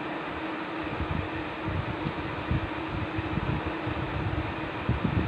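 Steady room noise: a constant low hum under an even hiss, with irregular low rumbling bumps throughout.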